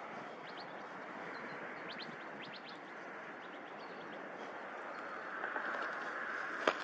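Short bird chirps, several in quick sequence, over a steady background hiss that swells slightly in the last couple of seconds, with one sharp click near the end.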